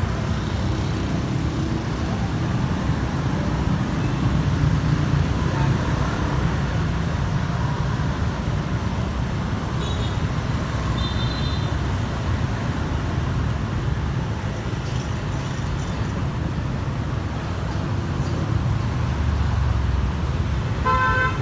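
Road traffic noise: a steady low rumble of passing vehicles, with two short high beeps about halfway through.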